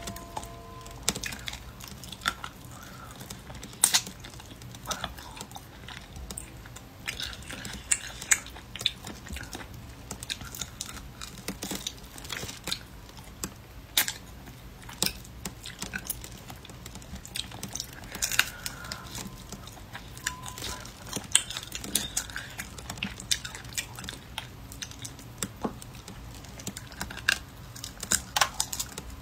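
Close-miked eating of a spicy braised rabbit head: chewing and gnawing at the meat, with many sharp, irregular clicks and smacks from lips, teeth and bone.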